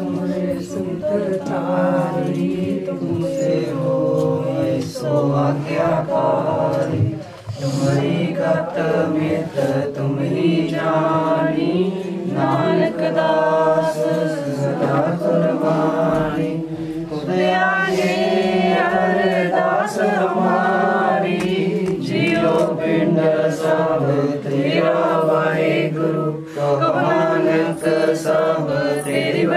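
A group of women singing a Sikh shabad together in a slow, chant-like melody, with short breaks between lines.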